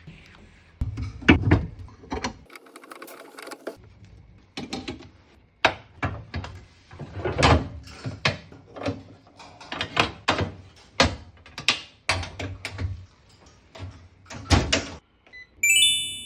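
Range hood parts being handled: a long irregular series of hard knocks and clacks, ending in a short bright ding near the end.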